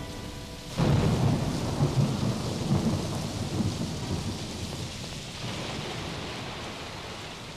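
Thunder with rain: a sudden crack of thunder less than a second in, then several seconds of rumbling thunder that slowly dies away, over a steady hiss of rain.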